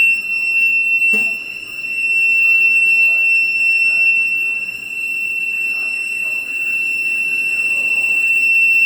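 Fire alarm panel buzzer sounding one steady, high-pitched tone, in alarm during a fire alarm system test. A sharp click comes about a second in.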